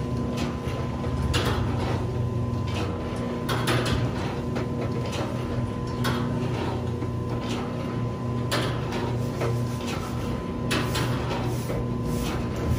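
Egg grading machine running with a steady motor hum, while eggs roll along its rails and drop into the sorting lanes with irregular clicks and knocks.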